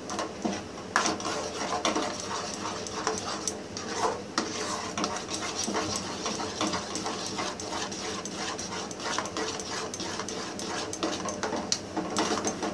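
A spoon stirring and scraping a thickening finger-millet and jaggery batter in a steel pot, a rapid, irregular stream of metal-on-metal clicks and scrapes.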